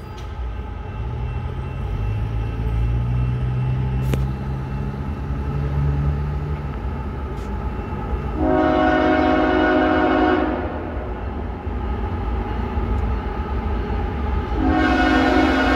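Approaching loaded coal train: the lead GE ES44AC-H diesel locomotive's engine drones steadily, rising in pitch over the first six seconds. Its air horn sounds two long multi-tone blasts for the grade crossing, the first about eight seconds in and the second near the end.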